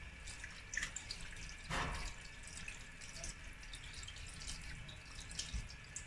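Faint drips and small splashes of water as cut mackerel pieces are rinsed and rubbed by hand on a wet cutting board, with one louder splash about two seconds in.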